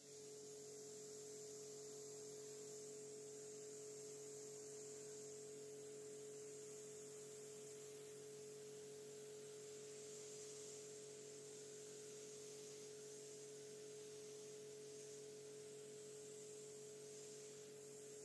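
Faint, unchanging hum with one clear steady tone over a few weaker ones, otherwise near silence.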